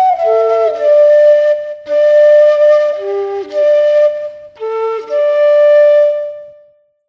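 Bansuri flute playing a slow melody in short phrases with brief breaks, ending on a long held note that fades out near the end.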